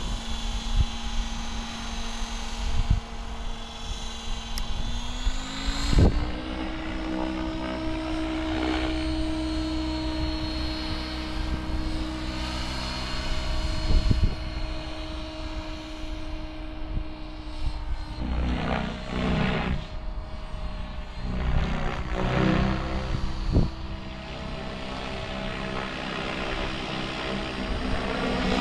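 Mikado Logo 700 electric RC helicopter in flight: a steady whine from the motor and drive with the rotor blades whooshing, rising in pitch about six seconds in and then holding. Louder blade swishes come in bursts later on, as the helicopter is thrown around. A few brief thumps also occur.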